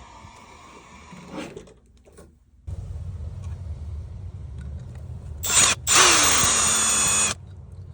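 Cordless drill/driver backing out the screws on a sprinkler valve's bonnet: a brief spin, then a high whirring run of about a second and a half.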